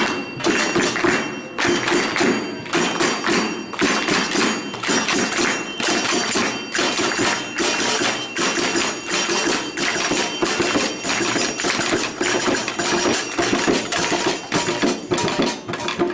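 Improvised group percussion keeping a steady rhythm, with sharp hand-struck taps and beats about two a second and a jingling, tambourine-like edge.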